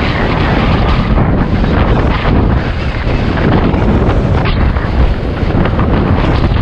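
Wind rushing over the camera's microphone on a bicycle moving at speed: a loud, steady, rumbling rush of noise with no distinct tones.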